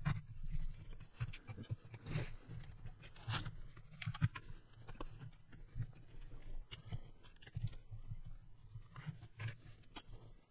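Scattered light clicks and taps of hands working on a mini RC car's plastic chassis, taking wheels off with a nut driver and setting parts down on the mat.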